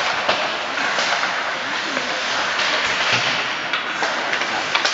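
Ice hockey rink sound during play: a steady scraping hiss of skate blades on the ice, a few sharp clacks of sticks and puck, and voices calling out.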